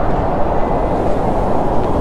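Electric rack-railway train of the Montreux–Glion–Rochers-de-Naye line running on the mountain track, a steady low rumble.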